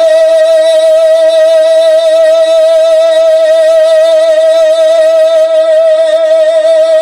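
A man singing a naat holds one long, loud high note with an even vibrato, unbroken throughout, in a classical style of sustained vocal ornament.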